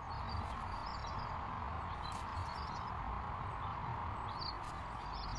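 Outdoor garden ambience: a steady hiss with a low rumble underneath, and faint short bird chirps now and then.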